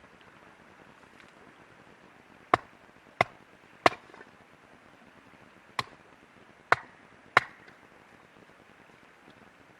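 Six sharp chops into wood, three in quick succession, then a pause of about two seconds and three more: firewood being chopped or split.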